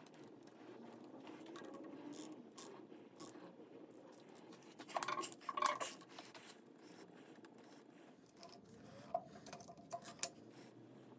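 Wrench and socket clicking and clinking against the ARP connecting-rod bolts of an LS V8 as they are fitted and tightened, busiest about five to six seconds in. A short high-pitched beep sounds about four seconds in, followed by a briefer one.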